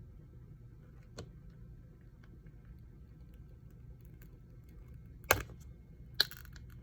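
A few sharp clicks of small repair tools against the phone during opening: a faint one about a second in and two loud ones near the end, over a steady low hum.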